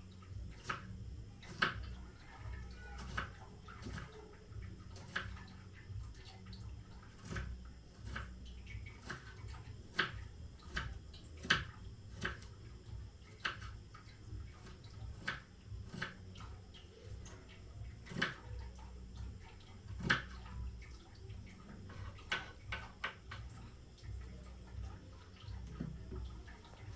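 Kitchen work with water: irregular clinks, knocks and light splashes, one or two a second, over a low steady hum.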